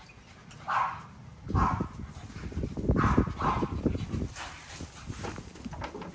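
Puppies barking and yipping in short bursts, several times a second or so apart, while they play-fight, with low scuffling thumps underneath.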